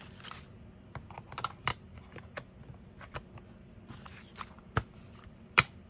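Craft supplies being handled on a tabletop: plastic ink pad cases and wooden rubber stamps being picked up and set down, giving scattered light clicks and taps, with two sharper clicks near the end.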